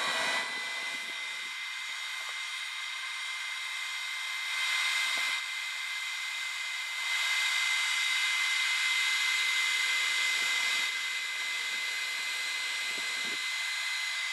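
Electric heat gun running: the rush of its fan with a steady high whine, spinning up to speed at the start and holding steady, a little louder from about seven seconds in. It is shrinking heat-shrink tubing over a crimped ring terminal.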